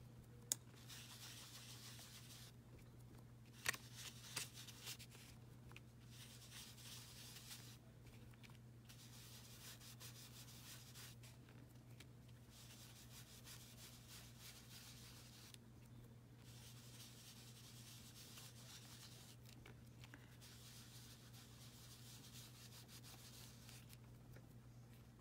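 Faint scuffing of an ink sponge dabbed and rubbed over cardstock, in stretches broken by short pauses, with a few light clicks in the first five seconds. A steady low hum runs underneath.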